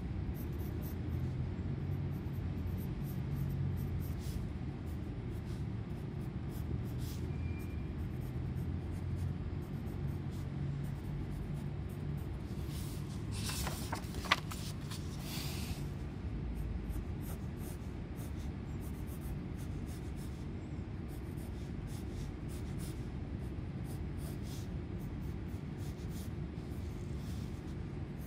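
Graphite pencil scratching on sketchbook paper in short strokes, over a steady low hum. About halfway through comes a brief flurry of paper handling with one sharp click.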